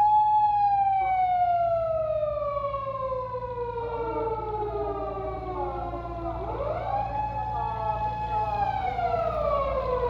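Electronic wail siren of a Japanese emergency vehicle, a harmonic siren with a rich, buzzy tone. It holds one pitch, slides slowly down over about six seconds, then sweeps quickly back up, holds briefly and falls again near the end, with a quick rise starting just at the close.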